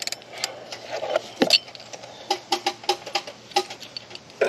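Light metal clicks and clinks of hand tools and the pulley puller being handled, with one deeper knock about one and a half seconds in and a run of evenly spaced ticks, about four a second, a little after the middle.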